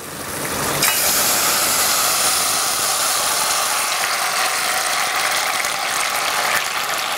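Diced king oyster mushrooms sizzling in hot caramelized sugar in a glass pot as they are tossed in and stirred. The sizzle builds over the first second, then holds steady.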